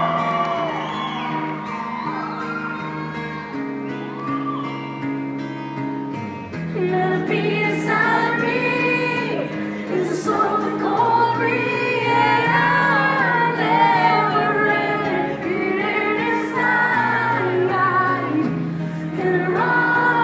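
Live band playing an acoustic gothic-rock ballad: a woman sings the lead melody over held guitar chords that change every few seconds. The band swells and gets louder about six seconds in.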